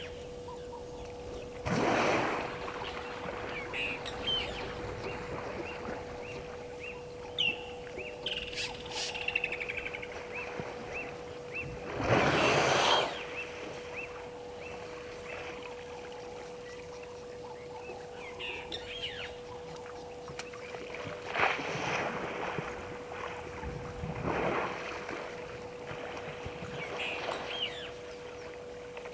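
African elephant splashing in a waterhole as it wades and rolls: several bursts of sloshing water, the loudest about twelve seconds in. Birds chirp throughout over a steady hum.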